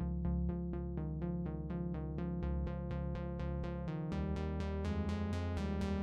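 Background electronic music: a fast, even synthesizer pattern of about five notes a second over a steady low bass.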